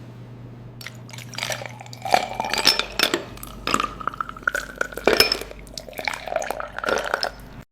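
Water dripping and splashing, with irregular sharp plinks, some ringing briefly, over a low steady hum.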